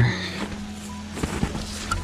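Footsteps crunching in snow, a scatter of irregular short steps, over a low steady hum.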